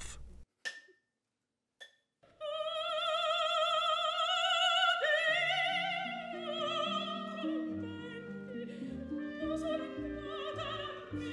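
Operatic singing: a high voice with wide vibrato holds long notes over orchestral accompaniment. It enters about two seconds in, after near silence broken by a couple of faint clicks.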